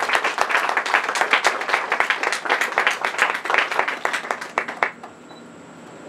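A small group applauding with hand claps for about five seconds; the clapping dies away abruptly near the end.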